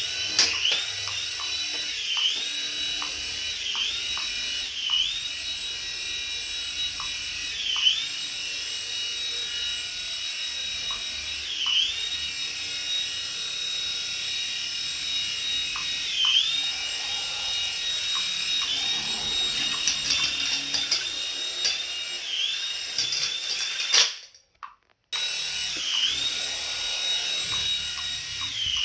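Small electric motor of a remote-control toy, running with a steady high whine. The whine dips briefly in pitch and comes back every few seconds, and drops out for about a second near the end.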